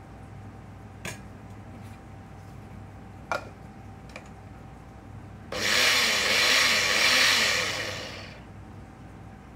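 A few sharp clicks as the lid of a small electric blender is handled and fitted, then its motor runs for about three seconds, whirring through garlic and anchovy in milk to purée them, and winds down.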